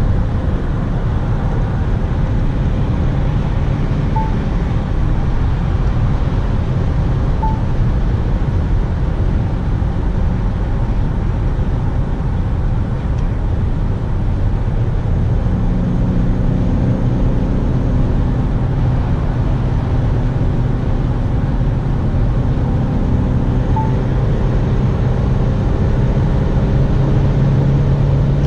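Inside the cabin of a 2019 Ford S-MAX AWD at motorway speed: steady road and tyre rumble, with the engine's drone coming up about halfway through and slowly rising in pitch near the end as the car gathers speed.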